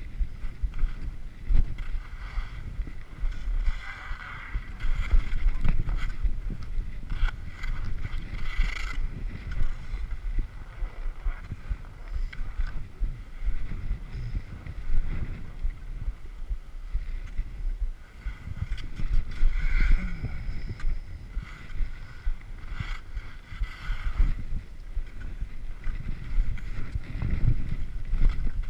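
Skis sliding and scraping over tracked-up snow on a traverse, a steady hiss that swells into louder scrapes several times, with scattered clicks. Wind rumbles low on the microphone throughout.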